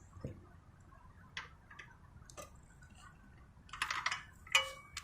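Light scattered clicks and taps of small metal parts and tools being handled on a motorcycle, then a rattling clatter and a sharp knock with a short metallic ring near the end.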